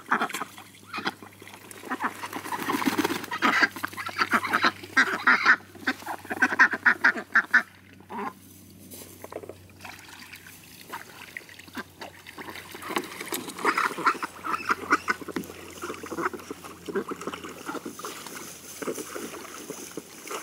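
Domestic ducks quacking in rapid, excited runs of calls. The calling is loudest in the first eight seconds or so, eases off in the middle and picks up again about thirteen seconds in.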